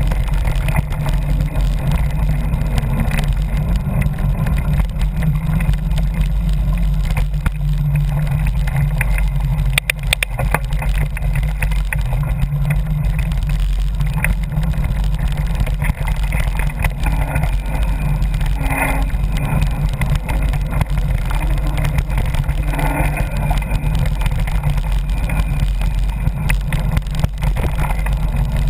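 Steady low wind rumble on the microphone of a camera moving fast along a dirt trail, with scattered rattles and knocks from riding over rough ground.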